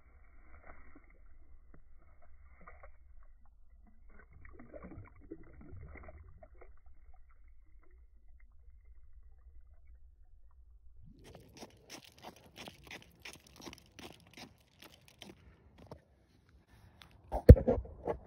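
Crunching on snow and ice, a steady run of about three crunches a second for several seconds, then a sharp, loud knock near the end.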